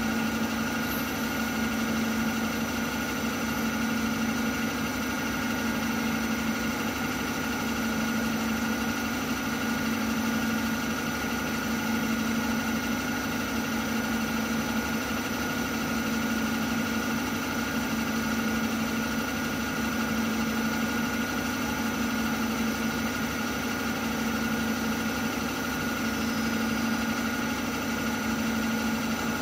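CNC milling machine spindle running at a steady speed, spinning a small workpiece in its collet for lathe-style turning: a steady machine hum with a constant high tone over it.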